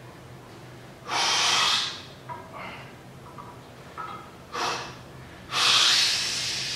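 A man breathing hard and forcefully while straining through a heavy set of barbell curls: a long loud breath about a second in, a short sharp one a little after the middle, and another long one near the end that fades out slowly, with faint short sounds between.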